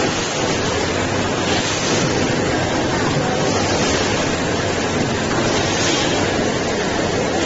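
Steady, unbroken hiss and rumble of factory machinery running.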